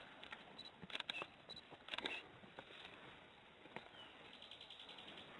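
Faint rustling and crackling of leaves and twigs in forest undergrowth, with small clusters of crackles about one and two seconds in.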